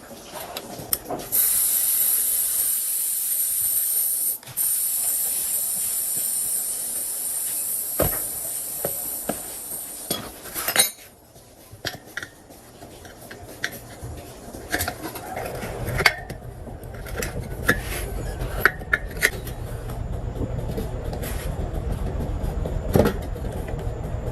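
A loud steady hiss of air or spray for about nine seconds, then scattered clicks and knocks of workshop tools, and a low rapid pulse of a small engine running through the last several seconds.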